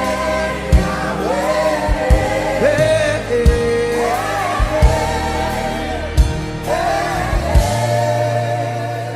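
Gospel worship music: voices singing a held, sliding melodic line over a band with a steady bass and a drum hit about every second and a half.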